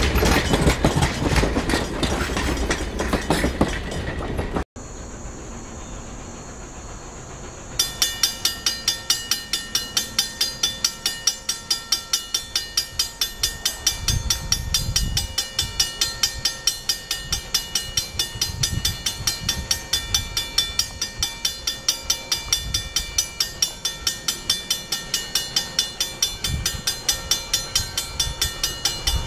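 Passenger coaches rolling past on the rails for the first few seconds. Then a bell rings steadily, about two to three strokes a second, warning of an approaching steam train, with occasional low rumbles beneath it.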